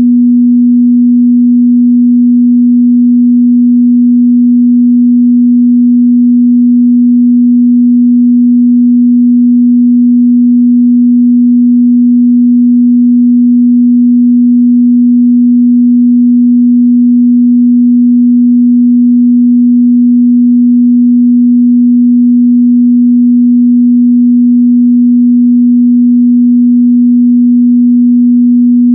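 A steady, loud 243 Hz sine test tone: one unbroken mid-bass hum at a single pitch, with no change in pitch or level.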